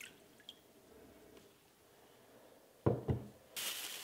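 Two dull knocks about three seconds in. Just before the end a plastic bag starts crinkling with a steady hiss as citric acid powder is shaken out of it into a plastic tub.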